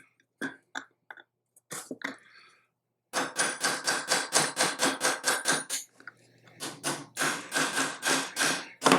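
Small hammer tapping a punch to drive the forward-assist roll pin home into an AR-15 lower receiver. After a few scattered taps, it strikes quickly and evenly, about five times a second with a metallic ring, in two runs with a short pause about six seconds in.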